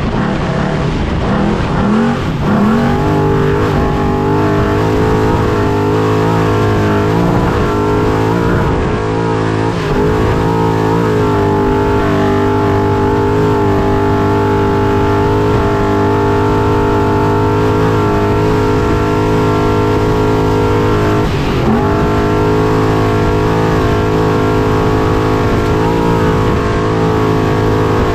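Trophy Truck's engine running hard at high revs, heard onboard. The pitch drops briefly and climbs back a few times: lifting off and getting back on the throttle. A steady rush of noise runs under the engine.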